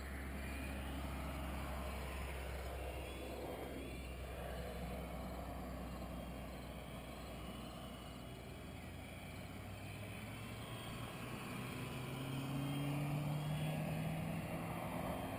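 Wind rumbling on the microphone, then a motor drone that grows louder and rises slightly in pitch about two thirds of the way in, loudest near the end.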